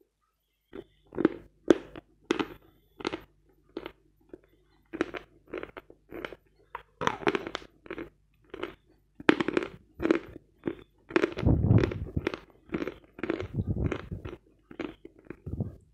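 A bar of dry Vatutin chalk being bitten and chewed right at the microphone: a steady run of short, crisp crunches, about two a second, starting about a second in, with a denser burst of grinding crunches a little past the middle.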